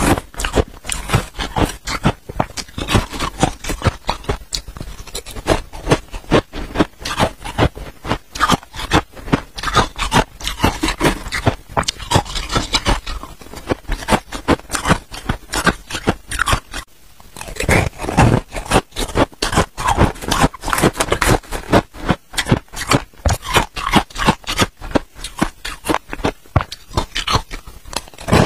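A metal spoon scraping through a pot of freezer frost, and mouthfuls of the frost crunched between the teeth: a dense run of crisp crackles, with a brief pause about 17 seconds in.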